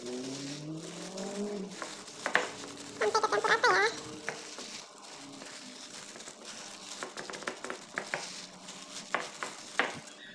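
Panko breadcrumbs rustling and crunching under a plastic-gloved hand as a battered fried egg is pressed and patted into the crumbs, with crinkles from the glove. A short wavering pitched call, the loudest sound, is heard in the background about three seconds in, and low gliding tones in the first two seconds.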